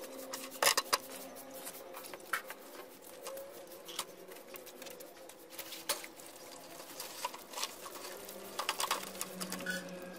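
Scattered splashes and sharp knocks from wading and handling a plastic bucket in the shallow water of a drained cement fish tank, with the loudest cluster of knocks about a second in. A faint steady hum runs underneath.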